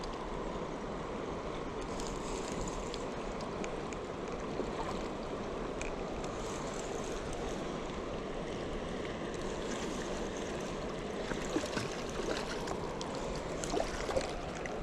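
Lake water lapping at the shore as a steady wash, with a few faint ticks a little past the middle and near the end.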